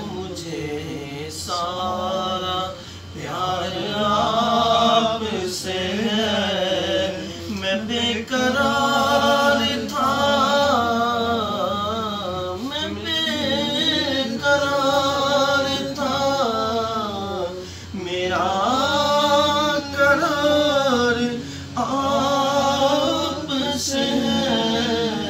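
Men singing a naat, an Urdu devotional poem in praise of the Prophet, in long wavering phrases with short breaks between them.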